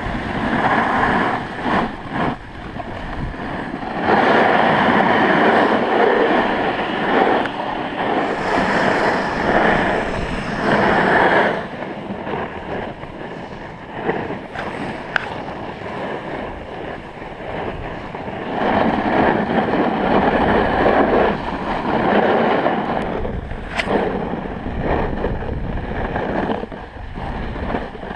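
Snowboard sliding and scraping over hard-packed snow, with wind rushing past the camera. The scraping swells into two long louder stretches, one starting a few seconds in and another later on.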